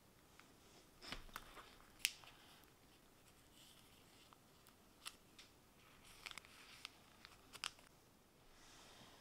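Faint handling sounds of a photocard album: scattered clicks and taps from the cover and soft rustles of its clear plastic sleeves being turned by hand. The sharpest click comes about two seconds in, with another a little after the seven-second mark.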